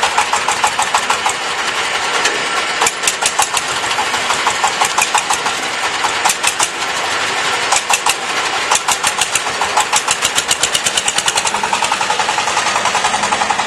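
Forklift engine running with a rapid, even clatter of knocks.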